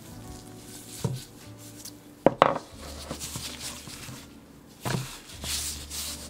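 Wooden rolling pin working tart dough on a wooden board, with a few separate knocks of wood on wood, the loudest a double knock about two seconds in. Near the end comes a soft rustle as the thin dough sheet is lifted and laid back on the floured board.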